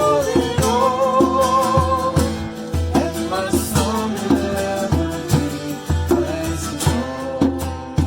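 Worship song with a singer holding a long wavering note over about the first two seconds, then shorter sung lines, over strummed guitar and a steady low beat.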